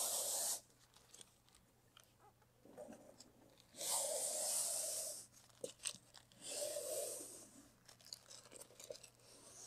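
Pre-mask application tape being peeled back against itself off a vinyl rocker stripe on a car door, in three ripping pulls: one right at the start, a longer one about four seconds in, and another about six and a half seconds in.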